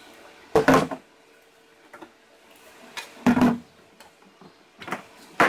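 Short, sharp knocks and clunks of a Vitamix blender being handled after blending, heard three times: just under a second in, a little past three seconds in, and near the end.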